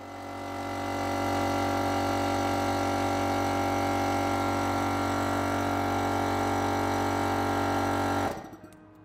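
A steady mechanical hum made of several held tones. It fades in over the first second, holds level, and cuts off suddenly about a second before the end.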